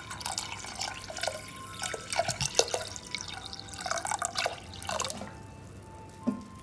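Water poured into a stainless-steel pressure cooker onto washed moong dal, splashing and gurgling unevenly, stopping about five seconds in.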